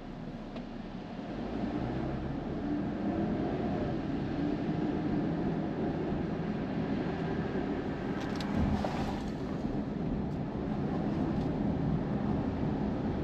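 Car interior noise while driving: steady engine and tyre rumble heard from inside the cabin, growing louder about a second and a half in, with a few faint ticks about eight seconds in.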